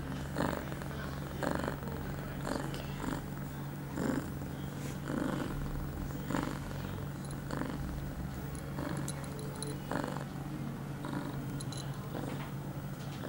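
Ragdoll cat in heat purring steadily while being stroked, the purr swelling about once a second.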